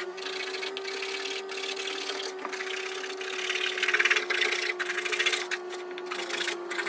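Hand-held blade sawing and rasping into the plastic housing of a used RO membrane filter, in short irregular strokes that get louder about four seconds in.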